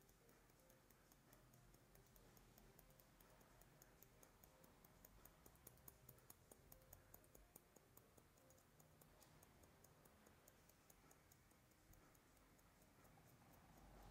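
Faint, quick snipping of haircutting scissors cutting through a section of long hair, several snips a second, busiest in the middle.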